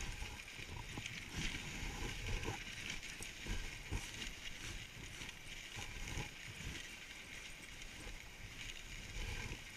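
Dog sled runners hissing over packed snow while huskies pull the sled, with irregular low knocks as the sled jolts along the trail.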